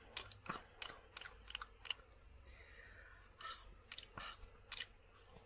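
Close-miked dry mouth sounds: a quick run of sharp tongue clicks and smacks, a soft hiss about two and a half seconds in, then a few more scattered clicks.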